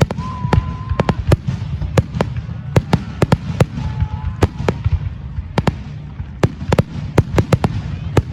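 Aerial fireworks going off in a rapid, irregular string of sharp bangs, several a second, over a steady low rumble, with a couple of brief whistling tones.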